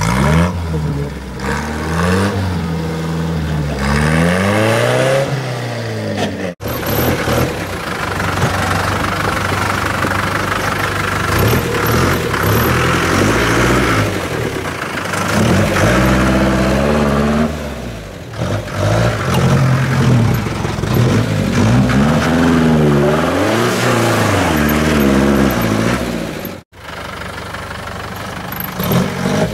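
UAZ-469 off-roader's engine revving up and down again and again as it crawls through a ditch and over frozen mud ridges. The sound breaks off abruptly twice.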